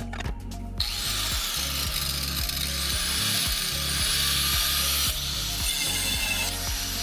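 A power tool running, with a dense hiss starting about a second in and easing after about five seconds, over background music with a steady beat.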